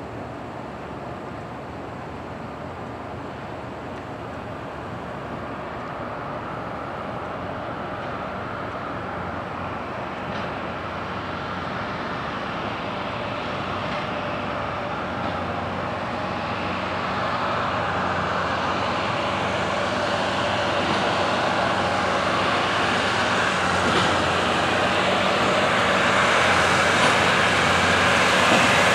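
CSX maintenance-of-way rail equipment approaching on the track, its engine and running noise growing steadily louder.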